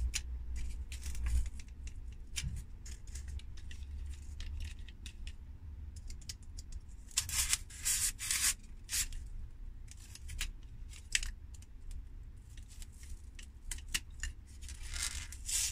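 Utility-knife blade cutting and scraping into a block of rigid foam plastic in many short scratchy strokes, with louder scratches about seven to nine seconds in and again near the end.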